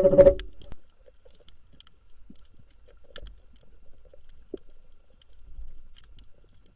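Background music stops abruptly within the first second. Faint, scattered light clicks and taps follow over a low rumble.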